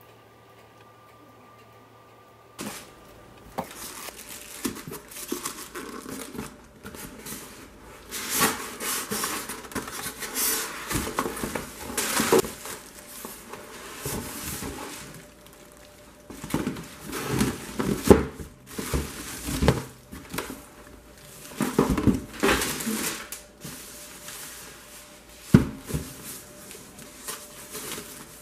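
A faint steady hum for about two and a half seconds, then air fryer packaging being handled: a plastic bag and packing material rustling and crinkling, with irregular knocks and scrapes against the cardboard box.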